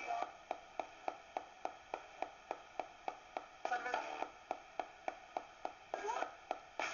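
Direct Linc ghost box radio sweeping across stations: an even clicking at about four steps a second over static, with brief snatches of broadcast voice and music about four seconds in and again near the end.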